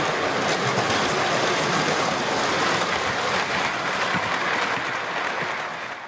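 JEP tinplate O-gauge model train running along its track, a steady clattering rumble of wheels on rails; it fades out near the end.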